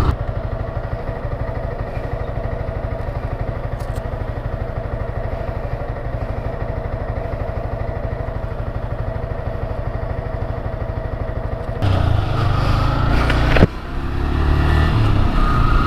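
Yamaha R15 V3's single-cylinder engine idling steadily, then pulling away under throttle about twelve seconds in, with a sharp click shortly after and the engine note rising near the end.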